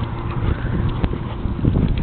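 Footsteps on a path with wind buffeting the microphone: a heavy, uneven low rumble under scattered short steps.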